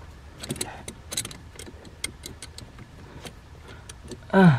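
Pliers and metal spring hose clamps clicking and clinking as a coolant hose clamp is squeezed and worked loose: a string of scattered light metallic ticks. Near the end, a short voice sound falling in pitch.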